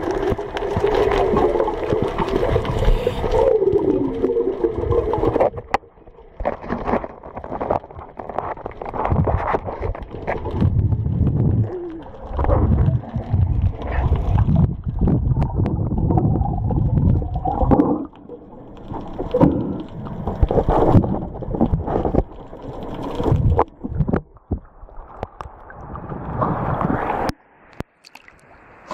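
Underwater bubbling and gurgling from a scuba diver's exhaled air rising from the regulator, coming in irregular bursts. Near the end the sound changes abruptly as the camera breaks the surface.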